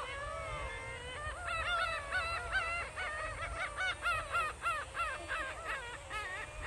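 A bird calling in a rapid run of harsh, repeated pitched notes, about four a second, over a low rumble.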